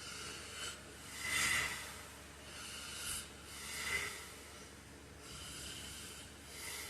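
A sleeping man's hissing, noisy breaths, three in a row about two and a half seconds apart. Each swells and ends in a sharper peak, the first the loudest.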